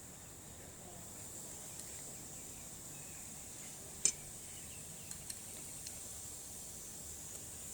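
Faint steady fizzing of a baking soda and vinegar reaction, with small scattered ticks and one sharp clink of utensil or bottle on the plate about four seconds in.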